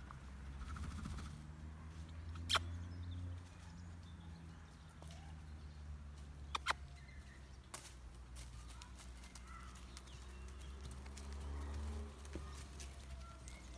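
Foals stepping across leaf litter and twigs in a paddock, with a few sharp clicks (one about two and a half seconds in, a quick pair around six and a half seconds, another near eight seconds) over a low steady rumble.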